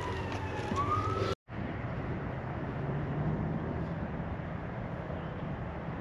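A distant siren wailing, its pitch sliding down and then starting to climb again, cut off abruptly about a second and a half in. After that, only steady outdoor background noise.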